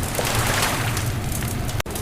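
Bonfire crackling and popping over a steady low rumble. The sound cuts out for an instant near the end.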